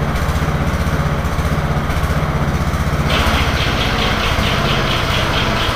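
Old Murray riding lawn mower's engine running steadily with an even low pulse. About three seconds in, a higher-pitched, evenly repeating rattle joins it.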